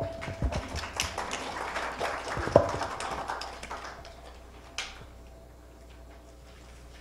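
Handheld microphone being carried and handled, with rustling and knocks, the sheet of paper crackling against it, and a sharp bump about two and a half seconds in. The noise settles after about four seconds, with one more click near five seconds.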